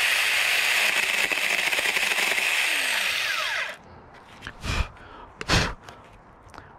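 Cordless 4-inch battery-powered mini chainsaw running as it cuts through a small tree branch, a steady high-pitched motor and chain noise that stops abruptly about three and a half seconds in. Then come two short thumps about a second apart.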